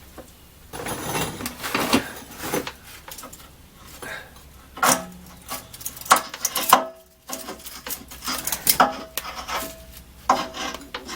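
Metal hand tools scraping and clinking on the exhaust pipe flange and its nuts. The scrapes and knocks come at irregular intervals, with a few short metallic rings.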